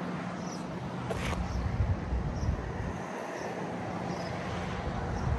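Outdoor ambience: a steady traffic hum with wind buffeting the microphone, and faint high chirps about once a second.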